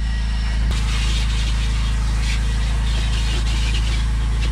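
Shop vacuum hose sucking air as the nozzle is worked over a truck's floor carpet: a rushing hiss that starts about a second in and swells and fades as the nozzle moves, over a steady low mechanical hum.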